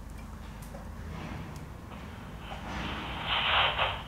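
Handheld walkie-talkie breaking into a hiss of radio static about two and a half seconds in, getting louder and fluttering near the end. The radio is being held open to catch a reply from a spirit.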